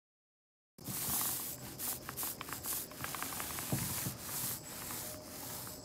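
Scratching and rubbing on a rough surface, starting about a second in and going on in uneven bursts with small clicks.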